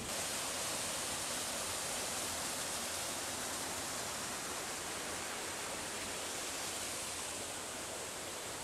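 Steady rush of a waterfall and river water pouring over rock, easing slightly toward the end.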